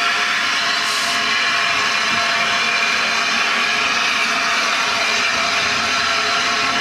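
Steady loud hiss of steam, with faint ringing tones in it, from the steam locomotive 60163 Tornado as it moves slowly beside the platform with its coaches.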